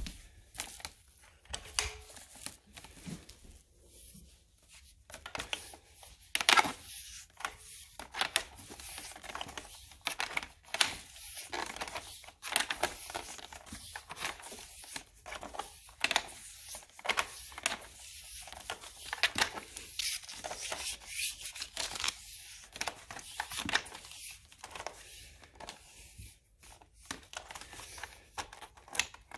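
Irregular crackling and rustling, with many short sharp crackles at uneven intervals over a faint low hum.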